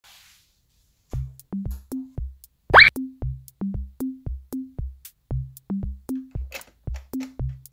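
Electronic background music: a drum-machine beat of short thumping bass notes stepping upward in pitch, about two a second, starting about a second in, with a single rising swoosh a little under three seconds in.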